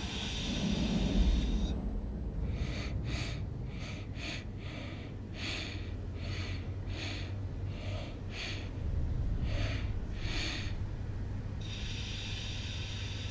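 A robot's servo motors whir briefly at the start and again near the end as it moves. In between comes a quick run of short breaths, about two a second, from a monkey, over a low steady hum.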